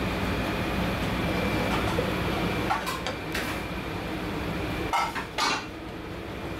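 Kitchen clatter over a steady background hum: a kitchen knife set down on a plastic cutting board and fish laid in a stainless steel tray, with a few short sharp clinks and knocks about three seconds in and again around five seconds in.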